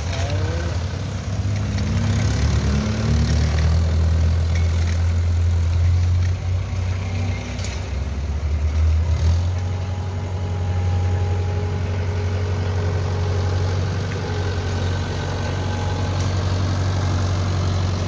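Farm tractor's diesel engine running steadily under load as it works a front-mounted blade through loose earth. Near the start a motorcycle engine rises in pitch as it pulls away.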